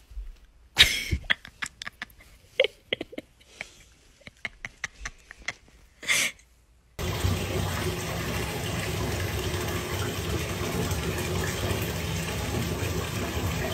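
Scattered sharp clicks and a few short squeaks, then from about halfway a steady rush of water running from a bathtub tap.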